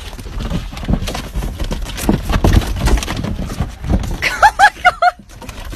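Scuffing, knocking steps and handling noise as someone runs with a handheld phone. About four and a half seconds in come four or five short, high squeals, each rising and falling in pitch.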